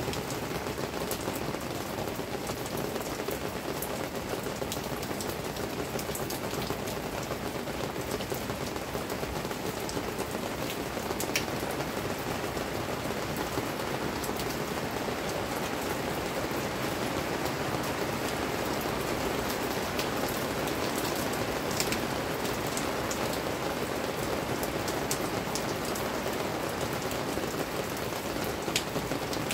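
Steady rain falling, an even wash of sound with scattered sharper drop ticks on top.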